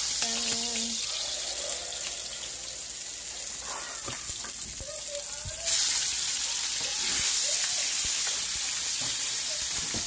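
Fish fillets sizzling in hot oil in a frying pan as a metal spatula turns them. The sizzle grows louder a little over halfway through, as a raw fillet goes into the oil.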